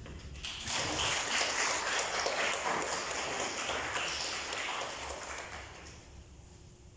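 Audience applauding, starting about half a second in and dying away over several seconds.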